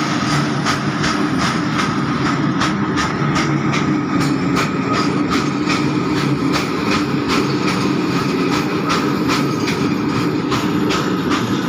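Freight train's tarpaulin-covered open wagons rolling past at close range: a steady loud rumble of wheels on rail with repeated clicks as the wheels cross rail joints.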